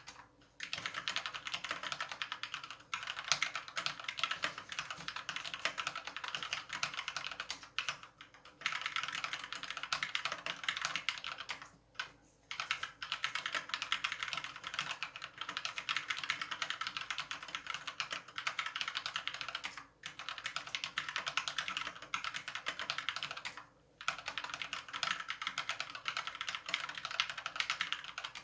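Fast continuous typing on a COX CK87 mechanical keyboard with Gateron Yellow linear switches: a dense patter of key presses, broken by short pauses about 3, 8, 12, 20 and 24 seconds in.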